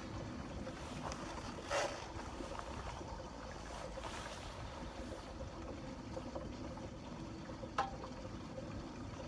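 Fishing boat on the water: a steady low rumble with water noise, a brief knock about two seconds in, and a sharp click near the end.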